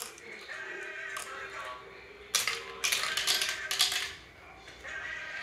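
Glass marbles clattering and rattling along a plastic marble run's tracks, with a sharp click at the start and a dense burst of clatter for about a second and a half in the middle. Background music plays throughout.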